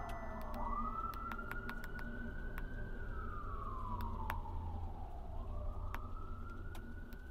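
Siren wailing slowly in the distance, its pitch falling and rising twice in long sweeps over a low rumble.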